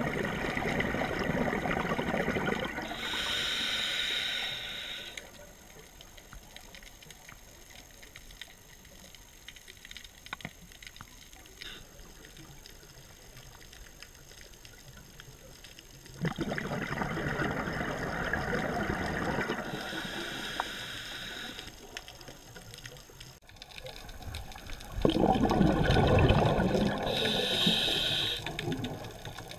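Scuba regulator breathing heard underwater: three rounds of exhaled bubbles lasting two to four seconds each, each followed by a shorter, higher hiss, about every ten seconds.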